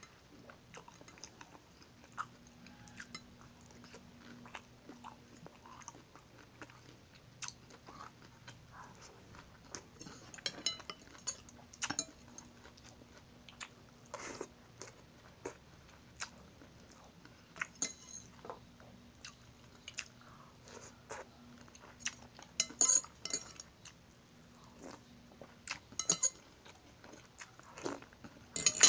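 Close-up chewing and eating of shrimp and ramen noodles: irregular wet mouth clicks and smacks, with occasional clinks of a metal fork and spoon against a ceramic plate.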